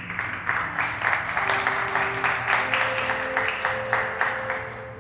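Congregation applauding, starting sharply and fading out near the end, over soft background music holding a couple of sustained notes.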